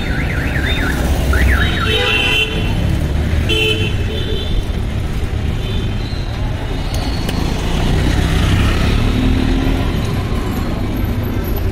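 Busy road traffic with a steady engine rumble and several short vehicle-horn toots in the first four seconds or so. A rapidly warbling tone sounds briefly at the start.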